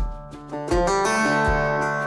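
Background music led by a plucked guitar, with a steady low beat about every three-quarters of a second.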